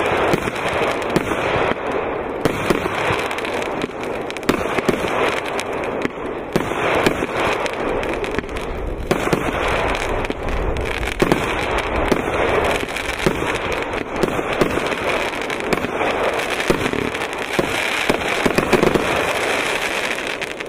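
Pyrokit 64 consumer firework going off: a continuous run of shots and star bursts under dense crackling.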